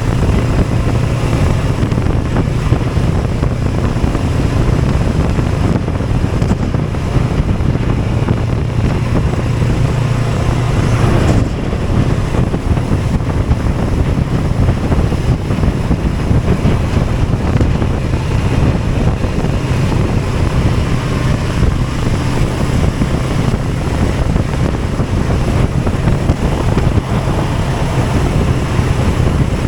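A vehicle under way with heavy wind noise on the microphone over a steady engine drone. The engine note changes once, about eleven seconds in.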